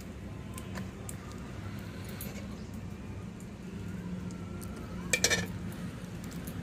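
Vegetable oil poured from a plastic bottle into an empty iron kadai, with a cluster of sharp clicks about five seconds in as the bottle is handled. A low steady hum runs underneath.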